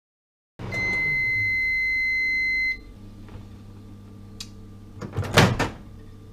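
Microwave oven giving one long, steady, high beep of about two seconds, the end-of-cooking signal, followed by a low hum. A little over five seconds in there is a short, loud clatter.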